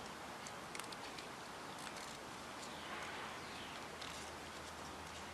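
Faint background hiss with a few small sharp clicks and some faint, short falling chirps from birds in the distance.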